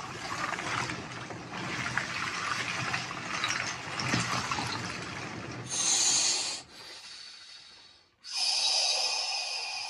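Large slabs of ice shifted about in ice water, sloshing, rubbing and crackling against each other. Then two forceful breaths are blown out through pursed lips, a short one past the middle and a longer one near the end.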